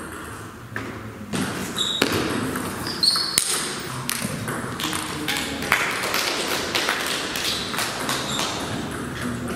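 Table tennis rally: the celluloid ball clicks off the bats and bounces on the table, a run of sharp, irregularly spaced ticks in a reverberant hall.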